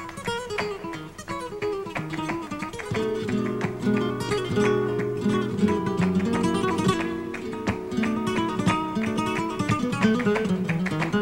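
Background music: a Spanish-style acoustic guitar piece, a steady stream of quick plucked notes over sustained low notes.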